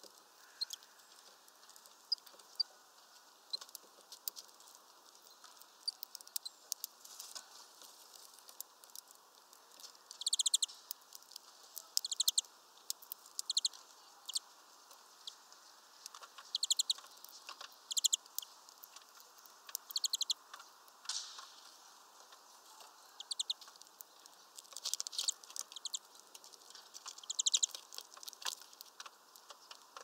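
Small birds pecking at peanuts in a wire-mesh feeder: scattered sharp taps and clicks, with about ten short runs of rapid ticking, each lasting under a second.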